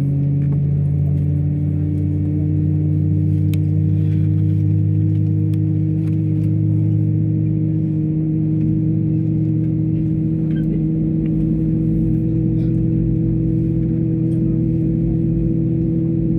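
Airliner's jet engines heard inside the passenger cabin while taxiing: a steady low rumble with a few steady droning tones.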